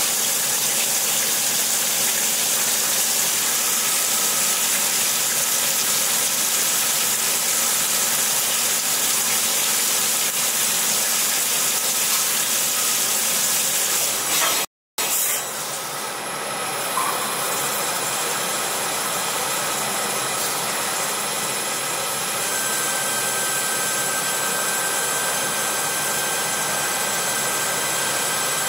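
Small automatic lathe drilling titanium alloy with high-pressure oil coolant: a steady hiss of the oil jet over the machine's running, with a few thin steady whines. It cuts out for a moment about halfway through, then carries on the same.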